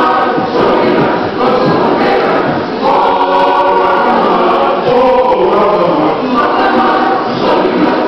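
A choir singing a sacred piece in sustained, legato phrases, with a new held chord every second or two.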